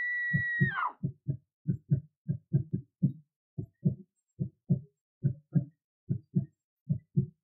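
Sound-design effect: a steady high-pitched electronic beep that cuts off about a second in, over a heartbeat made of dull low thumps repeating quickly in lub-dub pairs with silence between them.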